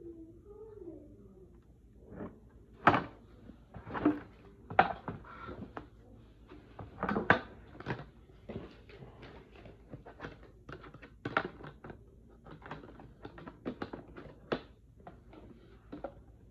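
Scattered clicks and knocks of hard plastic toy pieces being handled and fitted together, irregular, with the sharpest knocks about three, four and seven seconds in.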